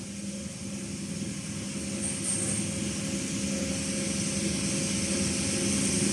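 Machine running with a steady mechanical hum and hiss, slowly growing louder.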